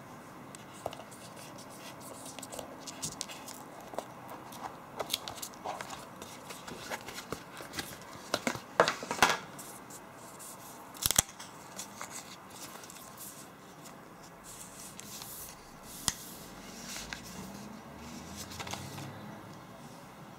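A smartphone box and its packaging being opened and handled: scraping and rustling with scattered clicks and taps, and a few sharper knocks about nine and eleven seconds in.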